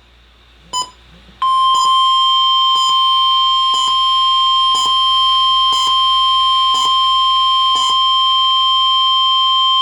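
NOAA Weather Radio warning alarm tone from a weather radio receiver: after a short blip, a loud, steady single-pitched beep starts about a second and a half in and holds, with faint ticks about once a second. It signals that a warning broadcast is about to be read.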